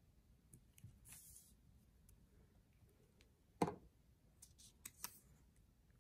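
Faint handling noises as paper picture cards and a glue stick are worked on a tabletop: scattered light clicks and taps, a brief rub about a second in, and one sharper click about three and a half seconds in.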